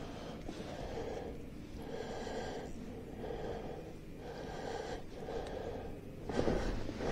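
A man breathing heavily and close to the microphone, with a breath about every second, from the exertion of fighting and landing a fish through an ice hole. A louder rustling noise comes near the end.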